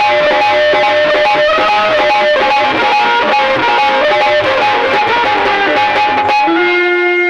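Loud interlude music led by a fast-strummed plucked string instrument playing a busy melody. About six and a half seconds in, it gives way to a long held note.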